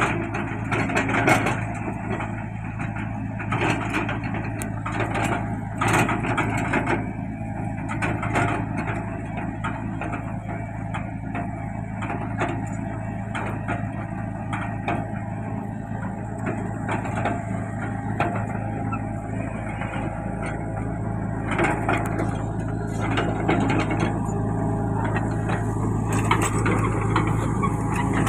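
Mini crawler excavator's diesel engine running steadily, with frequent clanks and rattles from its bucket, arm linkage and steel tracks as it works the sand.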